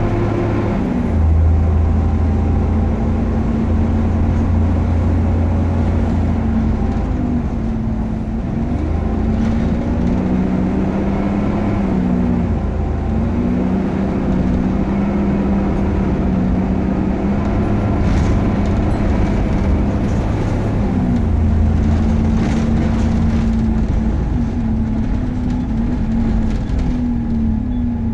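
Optare Versa single-deck bus running on the road, a steady engine and driveline drone whose pitch steps up and down repeatedly as the bus speeds up and slows.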